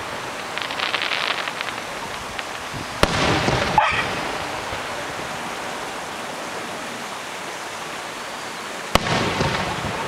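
Aerial fireworks: a spell of crackling near the start, a sharp bang about three seconds in with a crackling tail, then a steady hiss until a second sharp bang near the end, again trailed by crackling.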